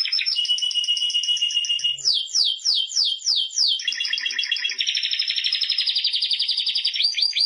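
Spanish Timbrado canary singing a continuous song of rolling trills. A held steady note gives way about two seconds in to a run of quick downward sweeps, then fast trills, with rising sweeps near the end.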